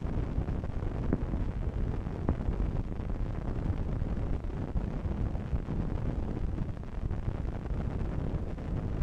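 Uneven low rumbling wind noise on the microphone, with two faint short ticks about one and two seconds in.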